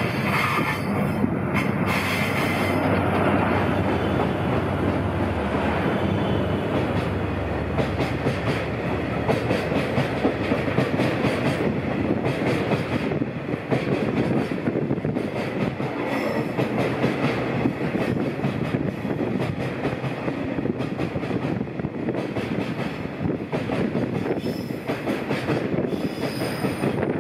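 JR Freight DF200 diesel-electric locomotive passing close by, its engine hum strongest in the first few seconds. A long string of Taki 1000 tank wagons follows, rolling past with a steady rumble and wheel clatter over the rail joints. Brief high wheel squeals come a few times in the second half.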